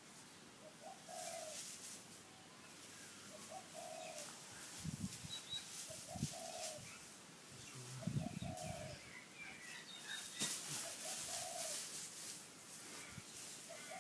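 A dove cooing a short phrase over and over, about every two and a half seconds, with the crackling rustle of dry straw being scooped up by hand, loudest about ten seconds in.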